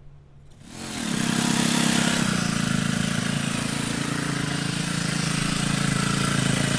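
BMW G 310 GS's single-cylinder engine idling steadily, coming in just under a second in, after an oil change with fresh oil circulating.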